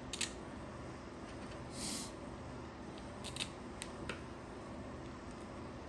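Small, sharp clicks of parts being handled as the long screws and housing of a heavy-duty plug are fitted back together: one click near the start and a short cluster of four between about three and four seconds in, with a brief rustle about two seconds in.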